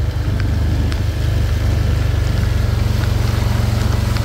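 Quad bike engine running steadily as the ATV drives along a dirt track, a low rapid putter at an even speed.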